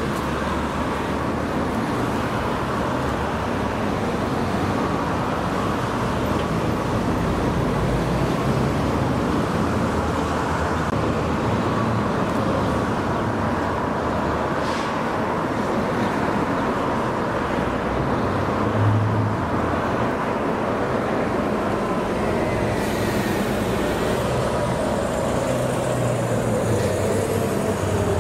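Steady street traffic noise from passing cars.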